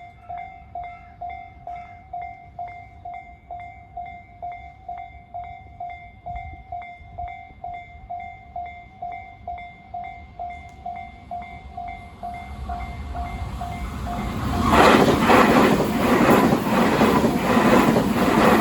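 Japanese level-crossing warning bell of the Tōjō type, an electronic ding repeating about twice a second. A train approaches about two-thirds of the way in, drowning out the bell, and passes loudly near the end with a rhythmic clatter of wheels over the rail joints.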